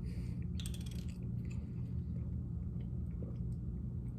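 Steady low hum, with a short run of crackly clicks a little over half a second in and a few faint ticks after, the kind of small sounds made by handling food, a drink or its container.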